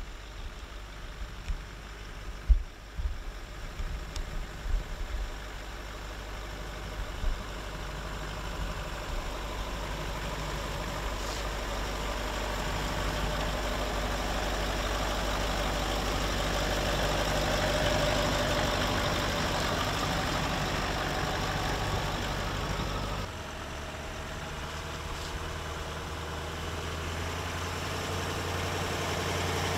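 Range Rover L322's V8 engine running at low revs as the 4x4 crawls over grassy, leaf-covered slopes, with a few sharp knocks in the first seconds. The sound swells, then changes abruptly about three quarters of the way through to a lower, steadier engine drone that slowly grows louder.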